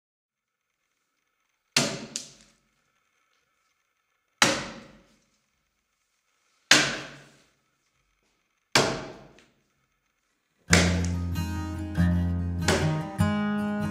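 An axe chopping into a timber log: four sharp blows about two seconds apart, each dying away within a second, the first followed by a smaller hit. Near the end, strummed acoustic guitar music starts.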